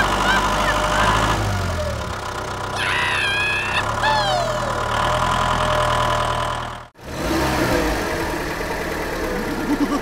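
Tractor engine idling with a steady low chug, joined twice by short high gliding squeaks; the sound drops out abruptly for a moment about seven seconds in, then carries on.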